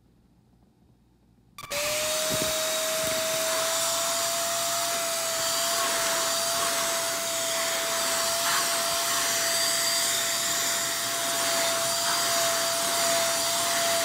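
APOSEN ST600 600 W corded stick vacuum, used as a handheld on carpet, switching on about a second and a half in and running steadily: a rushing hiss with one steady high whine.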